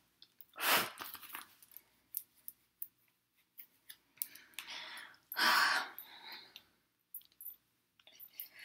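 A makeup brush and bronzer being handled and swept near the microphone: a few short scratchy swishes, the loudest about a second in and just after five seconds, with small clicks between them.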